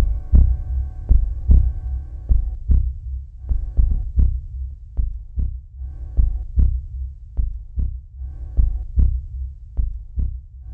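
Slow heartbeat sound effect in a show soundtrack: paired low thumps, about one pair every 1.2 seconds, with a quiet held chord coming and going above them.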